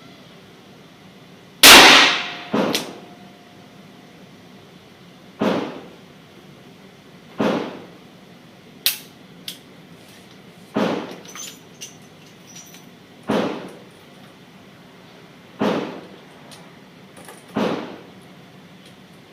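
Revolver gunshots from a .357 Magnum handgun firing .38 Special handloads (174-grain Keith bullets over 7 grains of Longshot), one shot every two to two and a half seconds, about eight in all; the first, about two seconds in, is much louder than the rest.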